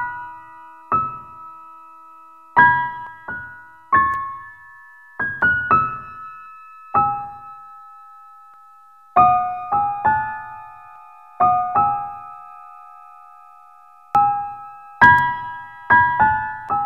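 Slow, sparse piano music: single notes and chords struck about once a second or less, each left to ring and fade, with a longer pause near the middle.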